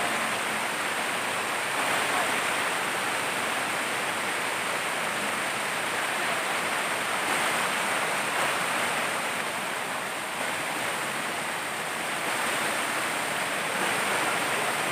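Small rocky jungle stream cascading over boulders, a steady, unbroken rush of water.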